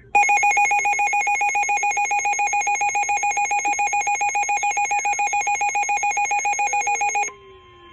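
Emergency weather alert tone: a loud electronic warble pulsing rapidly and evenly, several pulses a second, for about seven seconds, then cutting off suddenly. A quieter steady single tone, the weather radio warning alarm tone, takes over near the end. It signals an incoming special marine warning.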